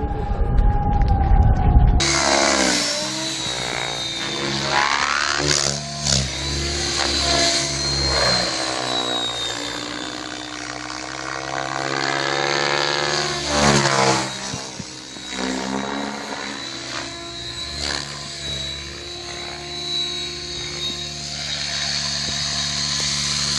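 Radio-controlled model helicopter flying, its rotor and motor whine sweeping up and down in pitch as it passes and manoeuvres. Before it starts, about two seconds in, there is a low rumble.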